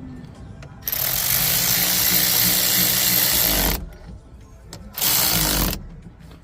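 Handheld power tool running in two bursts, one about three seconds long and one brief, driving the steering wheel puller's bolts in.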